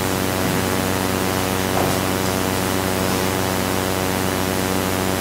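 Steady hiss with a low, even hum underneath: background noise of the room's sound system or recording chain, unchanging throughout.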